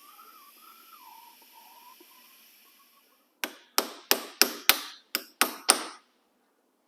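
Eight sharp metal-on-metal hammer blows on a pin punch, about three a second, starting about halfway through. They drive the ground-flat pins out of a #40 roller chain to cut it to length.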